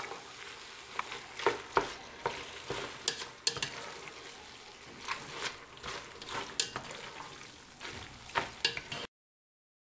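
A spoon stirring tagliatelle in a creamy spinach sauce in an enamelled pot, with repeated clacks and scrapes against the pot wall, over a steady sizzle of the sauce coming to the boil. The sound cuts off suddenly near the end.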